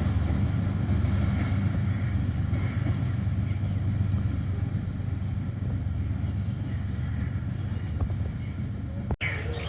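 Moving passenger train running steadily on the rails, a continuous low rumble, cut off abruptly near the end.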